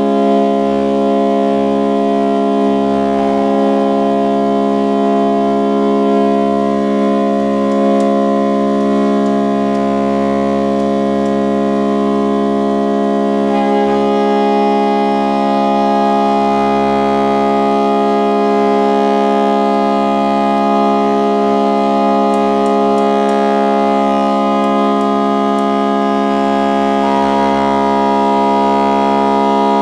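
Pipe organ mixture stop, on the Midmer-Losh organ, sounding one held low C sharp as a dense, steady chord of many pipe pitches. New pitches join near the start, about halfway and near the end as further ranks are unmuted to be tuned one at a time, with a few faint clicks in between.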